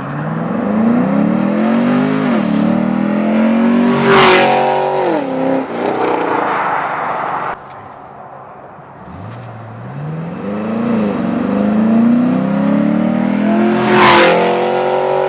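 2010 Camaro SS V8 with long-tube headers, high-flow cats and an X-pipe, accelerating hard at wide-open throttle past the microphone twice. Each pass, the engine pitch climbs, dips at an upshift, climbs again, then drops as the car goes by.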